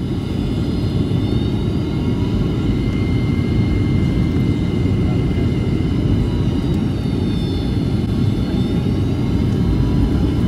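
Airliner cabin noise on final approach: a steady low roar of the engines and airflow, with thin high engine whines above it that drift slightly in pitch.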